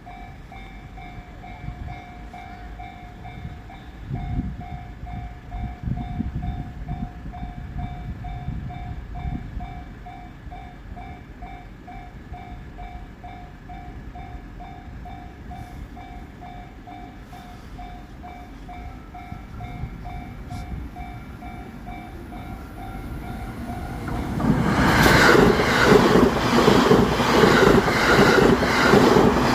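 Japanese level-crossing warning bell ringing in a steady, quick repeated clang. About 24 s in, an E353 series electric limited-express train passes at high speed; its loud passage drowns the bell, with wheels clattering in a steady rhythm over the rail joints.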